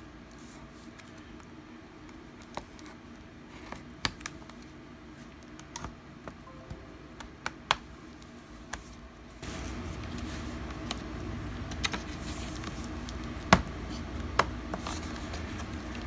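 Scattered light clicks and taps from an HP 15 laptop's case and parts being handled and taken apart by hand, about a dozen sharp ticks at irregular intervals, the sharpest one near the end. A steady low hum comes up about nine seconds in.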